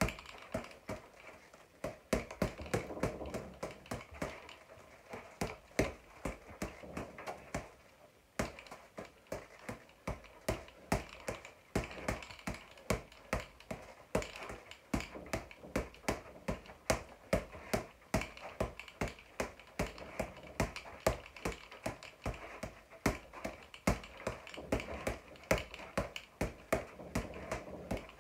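Boxing gloves punching a floor-to-ceiling ball: a fast, irregular run of sharp slaps, about three a second, with a brief break about eight seconds in.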